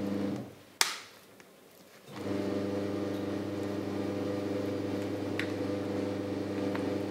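A steady low hum with evenly spaced overtones cuts out about half a second in and comes back about two seconds in. Ripe bananas are being mashed with a fork, with one sharp click of the fork about a second in and a faint tap later.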